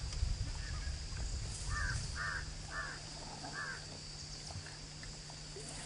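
Four short calls from a bird, about half a second apart, over a low background rumble.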